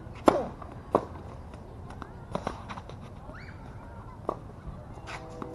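Tennis rally on a hard court: a series of sharp pops from racket strings hitting the ball and the ball bouncing, spaced a second or two apart. The loudest pop comes just after the start.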